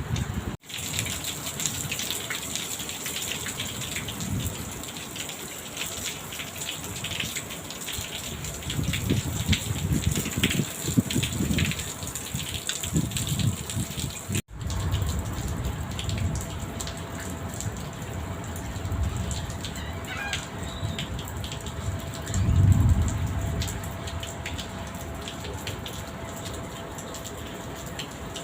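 Steady rain, a dense patter of drops, with low rumbles coming and going in gusts, the loudest about 22 seconds in. The sound drops out abruptly twice, once near the start and once about halfway.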